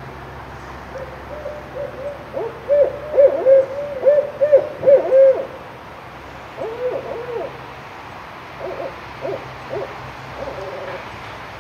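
Barred owls hooting and calling to each other: a fast run of hoots that slide up and down in pitch, loudest in the first half. Shorter, quieter bursts of calls follow twice later on.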